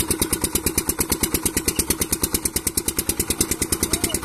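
Stationary Petter diesel engine running steadily while belt-driving a wheat thresher, with a loud, even exhaust beat of about ten pulses a second.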